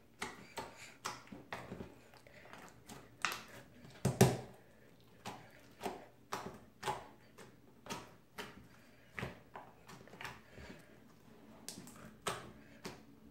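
Hands squishing and pressing runny, microwave-softened black slime, making irregular short wet pops and clicks, a few a second, the loudest about four seconds in.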